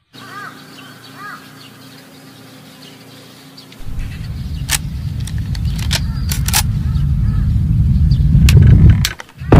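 Edited cinematic intro sound effects: a faint hiss with a few short bird-like chirps, then from about four seconds in a low rumble that swells louder and louder, crossed by several sharp clicks, ending in a heavy hit.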